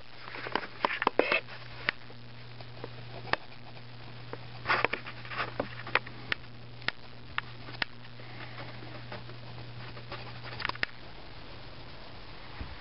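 Standard poodle sniffing at close range: scattered short, quick sniffs, some in quick clusters, over a steady low hum that stops near the end.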